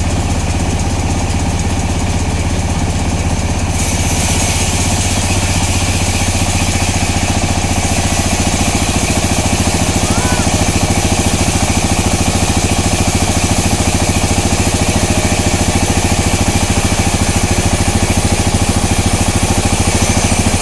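Sawmill machinery running steadily with an even engine pulse and a deep hum. About four seconds in, a brighter hiss joins it and continues, as the saw works the timber.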